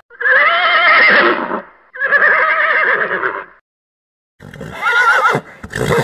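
Horse whinnying three times, each a loud call of about a second and a half with a wavering, quavering pitch, separated by short pauses.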